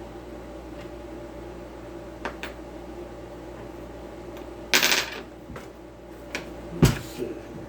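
Circular saw and blade being handled while the blade is fitted: a few light clicks, a brief rattle about five seconds in, and a solid knock near the end, over a steady low hum.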